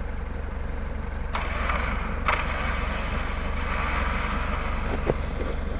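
Off-road vehicle's engine running low and steady, with two sharp knocks about a second and a half and two seconds in, followed by a steady hiss for a few seconds.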